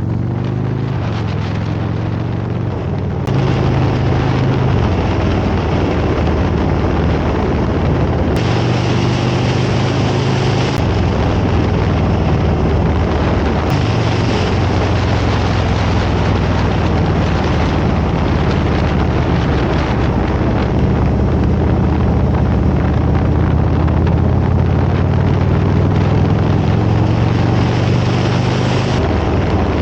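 Harley-Davidson Road Glide's V-twin engine running at road speed under heavy wind noise on the microphone. The sound changes abruptly a few times, about 3, 8 and 11 seconds in.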